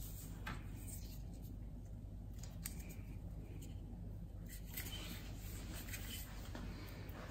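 Faint handling sounds: a few light clicks and rustles as a paper test strip is handled and picked up off a worktop, over a low steady hum.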